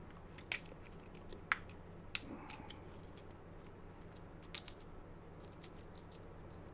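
A few light, sharp clicks and taps from small parts being handled, three spaced in the first couple of seconds and a small cluster about four and a half seconds in, over a faint steady electrical hum.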